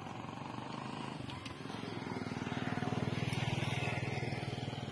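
Water buffalo's low, rough groan, swelling up about two seconds in and fading away near the end.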